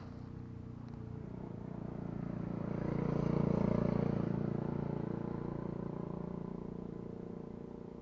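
A motor vehicle's engine passing by, swelling to its loudest about halfway through and then fading away.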